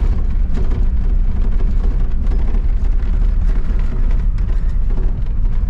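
Toyota Land Cruiser troop carrier driving along a dirt bush track: a steady low rumble of engine and tyres with small rattles and knocks.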